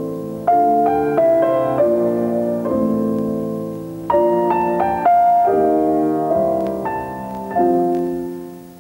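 Solo piano music: slow notes and chords struck one after another, each ringing out and fading, dying away near the end.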